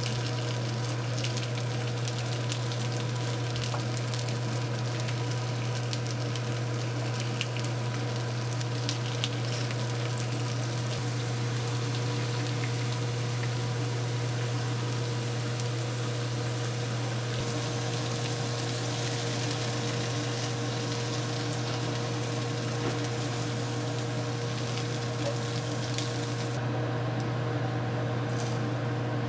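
Food frying and sizzling, with fine crackles throughout over a steady low hum; the sizzle drops away about three seconds before the end.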